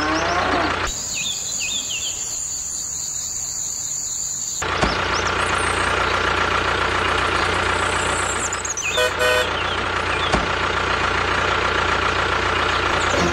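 Tractor engine sound effect running steadily, with a short horn toot about nine seconds in. For the first few seconds the engine is replaced by a high steady tone with quick pitch slides.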